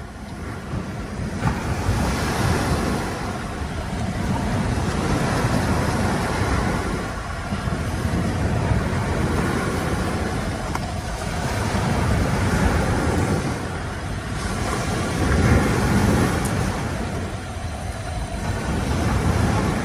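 Surf on a sandy beach and wind on the microphone: a steady rushing noise that swells and eases every few seconds.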